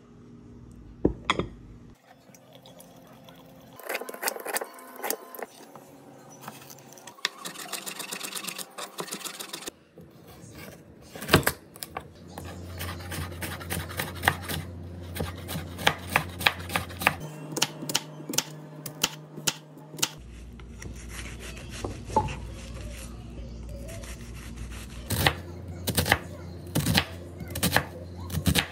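A chef's knife dicing carrots and onion on a bamboo cutting board: runs of quick knocks of the blade on the wood, in several short stretches one after another.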